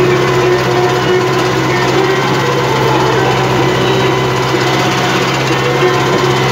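Farm tractor engine running steadily under load, pulling a tine cultivator through the soil.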